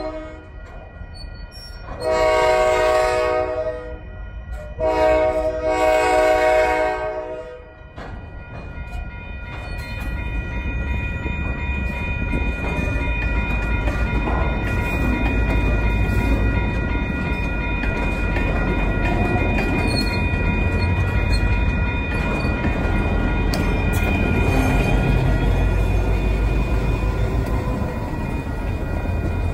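Diesel locomotive air horn sounding two long blasts, then the low rumble of a moving freight train that builds as tank cars roll over a grade crossing and an EMD SD40-2W's 16-cylinder diesel engine draws near at the end, with faint steady whistling tones over it.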